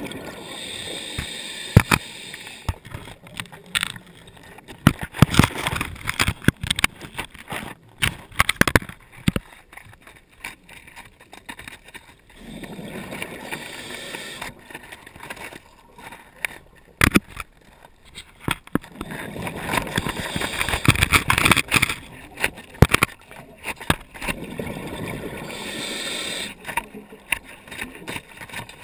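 A diver's breathing heard underwater through the camera housing: spells of steady hiss alternate with two long spells of exhaled bubbles rushing and crackling, about every twelve seconds.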